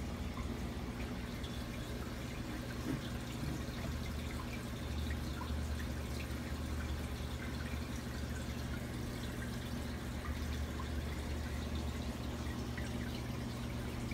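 Aquarium filter running: a steady low hum with water trickling and dripping into the tank.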